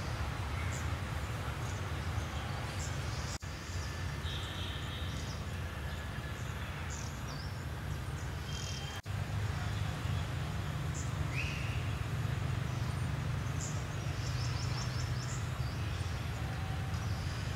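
Open-air ambience: a steady low rumble with hiss beneath it, and scattered small high chirps over it, with a short rising chirp about eleven seconds in and a quick rapid trill near the end. The sound drops out for an instant twice.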